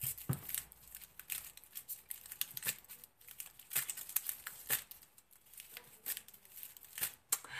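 Soft rustling with many scattered clicks and taps.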